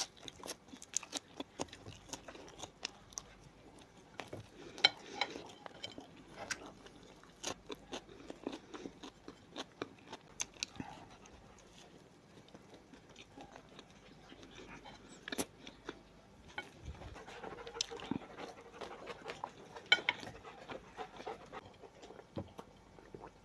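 Close-miked eating sounds: crisp bites and chewing of fresh green onion and other food, with wet mouth clicks and smacks coming irregularly.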